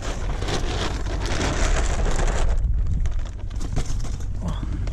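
Wind buffeting the microphone as a low rumble, with a thin plastic weigh-in bag crackling and rustling as it is handled and opened.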